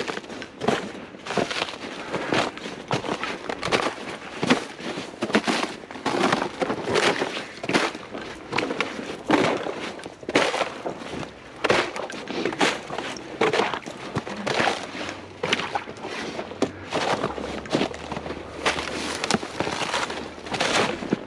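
Footsteps of a person walking over rough swamp ground: irregular crunching and rustling steps, about two a second.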